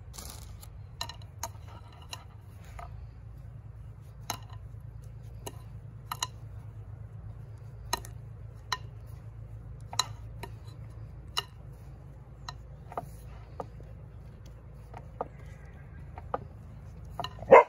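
A utensil clinking and knocking against a mixing bowl while pizza dough is stirred, one sharp knock every half second to second over a low steady hum, with a louder clatter near the end.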